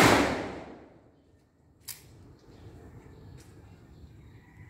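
Tail of a Rock Island Armory M206 .38 Special revolver shot, its report echoing and dying away over the first second. About two seconds in comes a short click as the hammer is cocked for the next single-action shot.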